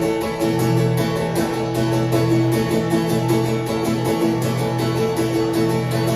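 Acoustic guitar strummed in a steady rhythm, about three or four strokes a second, holding ringing chords with no singing.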